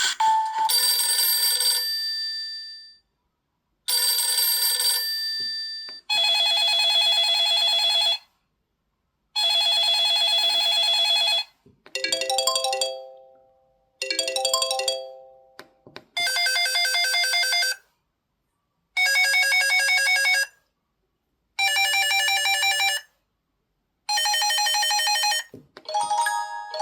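Samsung Anycall SCH-W570 mobile phone playing its built-in alert tones one after another: about ten short electronic chimes and little melodies, each lasting one to two seconds, with brief silent gaps between them.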